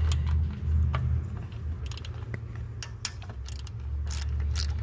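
Hand ratchet clicking in short bursts as screws are backed out under the hood, with small metal tool clinks, over a steady low hum.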